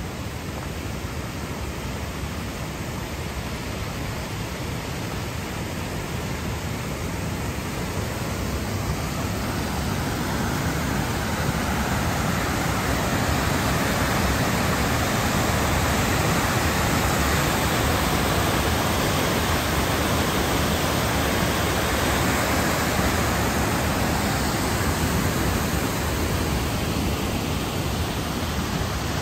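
Alpine mountain torrent rushing steadily, with water pouring over a concrete weir. The rush swells about a third of the way in, is loudest around the middle, and eases slightly near the end.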